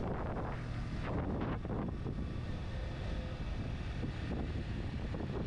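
Motorcycle riding at road speed, its engine and tyre noise heard steadily under wind rushing over the rider's microphone.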